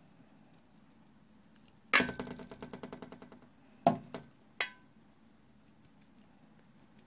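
A hard object dropped onto a hard surface, rattling and ringing briefly as it settles, followed by three sharp knocks.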